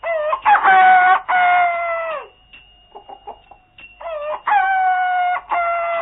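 A rooster crowing twice, about four seconds apart. Each crow is a long held call that falls away at the end.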